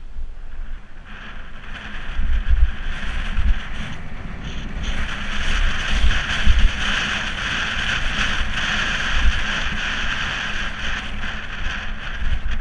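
Wind buffeting the microphone of a camera worn by a rider on a moving bicycle, with uneven low rumbles, and a steady rushing hiss that comes in about a second in and grows louder about halfway through as the bike picks up speed.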